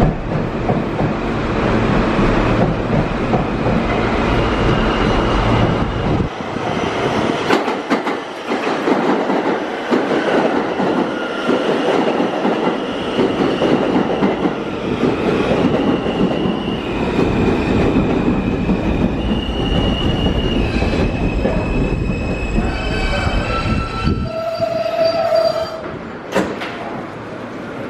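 R160A New York City subway train pulling into the station and braking to a stop: loud, continuous rumble and rattle of wheels on rail, with high whining tones that shift in pitch in steps as it slows. A shorter, lower squeal sounds near the end as it comes to a halt.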